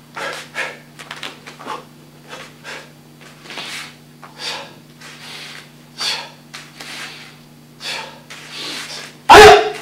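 Martial arts uniform swishing and snapping with sharp breaths as punches, blocks and turns of a kata are thrown, short strokes every half second or so. Near the end comes the loudest moment: a thump with a short loud shout, a kiai.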